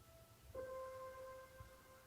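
Quiet, slow background piano music: a single note, struck about half a second in, rings on and fades.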